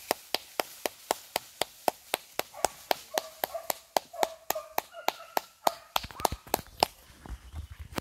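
A rapid, even series of sharp clicks or taps, about four a second, with a faint wavering tone in the middle stretch.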